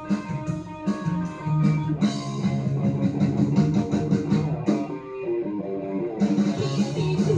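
Live rock band playing an instrumental passage on electric guitars, bass and drums, heard as a TV playback. The cymbals drop out about five seconds in and come back about a second and a half later.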